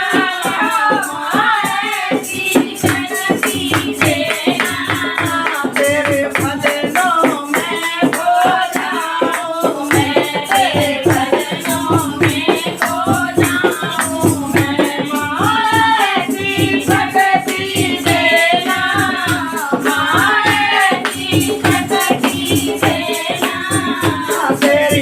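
Hindi devotional bhajan sung to a steady percussion beat, with rattling shaker or jingle percussion over the drumming.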